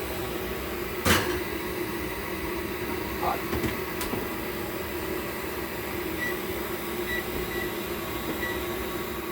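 Steady mechanical hum with a sharp clunk about a second in and a lighter click near four seconds in.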